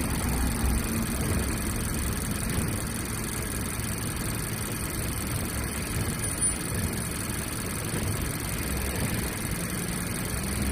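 2018 Mazda CX-5 engine idling steadily with a rapid repeated knocking ('dadadada'). This is a noise that goes away once the engine has run about ten minutes after start-up.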